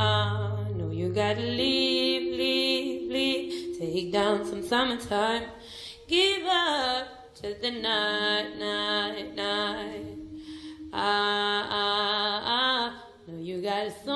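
A woman singing a slow melody with vibrato, long held notes and pitch slides, with a low sustained note underneath for the first second and a half.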